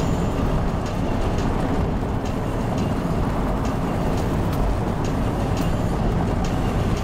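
Road and wind noise inside a moving car: a steady low rumble with scattered light ticks and rattles.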